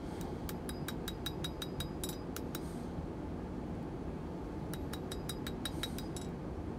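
Hand hammer striking red-hot, thin steel on an anvil in two quick runs of blows, about five a second, each with a short high ring, with a pause of over a second between them. The blacksmith is forging the end of a strap hinge out to a tapered spade end.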